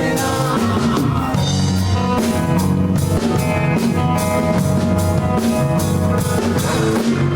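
A rock band playing live with a full drum kit keeping a steady beat under guitar and bass.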